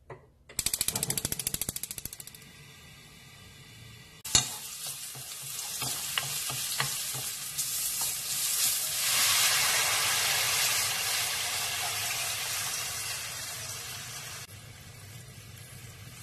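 Gas stove igniter clicking rapidly for about two seconds, then a low hiss. About four seconds in there is a sharp clack, then hot oil sizzling as sliced chilies and green onions are fried and stirred with a wooden spoon scraping the pan. The sizzle grows loud, then drops abruptly near the end.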